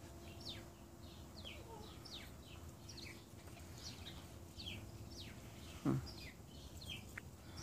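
Small birds chirping repeatedly, short high chirps that slide downward, about two or three a second, over a faint steady hum. A single short low thump about six seconds in is the loudest sound.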